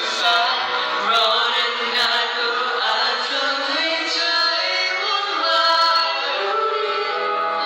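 Singing: a melody with held, gliding notes. The sound is thin, with no bass.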